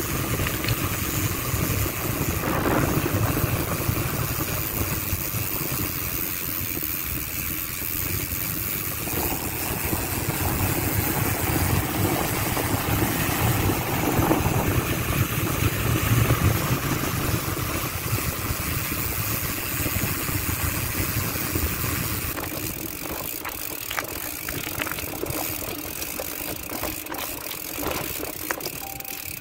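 Riding noise from a mountain bike on the road: wind rumbling on the microphone over road noise. About 22 seconds in the rumble eases and a few sharp clicks come through.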